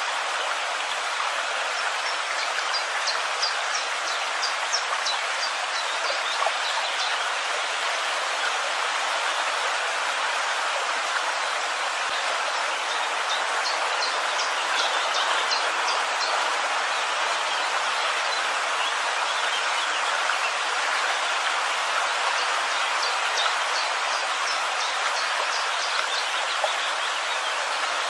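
Steady, even hiss of water, with birds chirping in three short runs of quick high notes.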